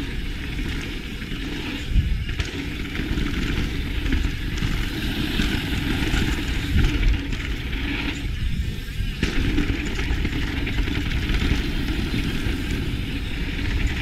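Mountain bike riding fast down a hard-packed dirt trail, heard through a GoPro Hero 7's built-in microphone: steady wind noise and tyre rumble on dirt, with heavy thumps from the bike hitting the ground about two seconds in and again around seven seconds in.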